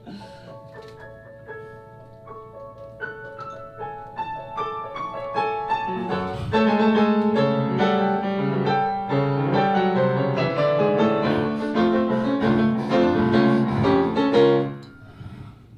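Solo piano introduction: single notes stepping upward in pitch, then fuller chords over a bass line from about six seconds in, which die away near the end.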